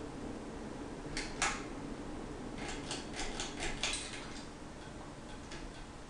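52-inch Hunter ceiling fan running with a faint steady hum, with sharp clicks over it: two about a second in, then a quick run of about six between two and a half and four seconds in, and a few fainter ticks after.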